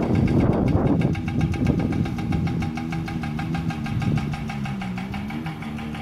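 A motor engine running steadily, its pitch wavering up and down and dipping about five seconds in, with a fine fast ticking, after a short rush of noise in the first second.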